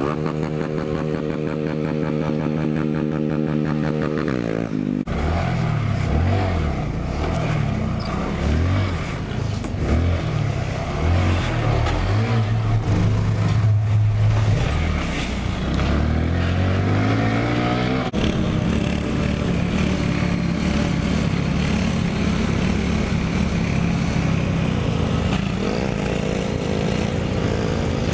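Small single-cylinder mini motorcycle engines running under way. At first the engine holds a steady note. Through the middle it revs up and drops back again and again, then it settles back to a steady pull near the end.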